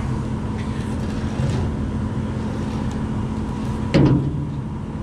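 Truck engine running steadily, with a heavy wooden block set down with a single loud knock on the steel truck tray just before four seconds in.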